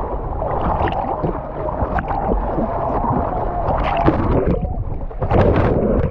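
Fast river water churning and gurgling around a camera that dips under the surface and back out, heard as bubbling with muffled splashing. The splashing is louder near the end as the camera breaks the surface.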